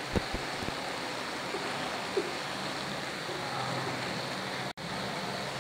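Chicken pieces sizzling in a little oil in a non-stick frying pan on a low flame as the masala dries, a steady hiss. A few light clicks of metal tongs against the pan come near the start and about two seconds in.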